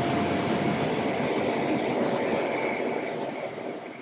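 Bombardier CRJ-900's two rear-mounted General Electric CF34 turbofans on final approach and flare, a steady jet rumble with a faint high whine, fading over the last second.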